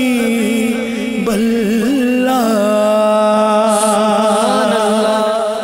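A single male voice reciting a naat, an Urdu devotional song, sung into a microphone. The voice wavers through ornamented turns, then settles into a long held note from about halfway in.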